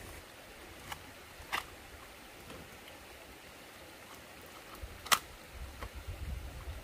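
Three short, sharp clicks over faint background noise; the last, about five seconds in, is the loudest.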